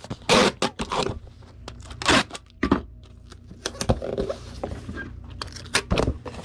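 Bubble wrap crinkling and a cardboard shipping box being handled while packing: several short, sharp rustles and scrapes.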